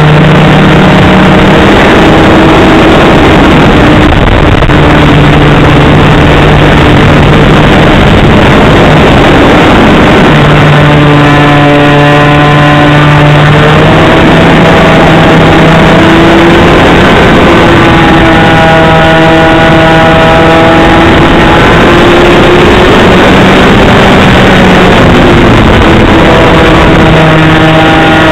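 Model airplane engine running in flight, heard from a camera mounted on the plane, loud and close. Its pitch rises and falls several times as the throttle changes.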